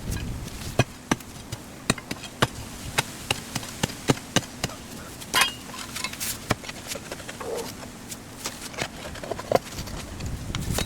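Steel crowbar striking and prying at a large rock buried in a post hole, with a series of sharp, irregular knocks and a brief scrape about halfway through.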